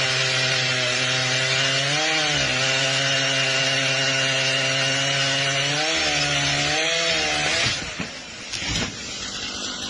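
A small engine running at a steady pitch, its pitch dipping briefly three times, then cutting off about three-quarters of the way through, after which a quieter rushing noise follows.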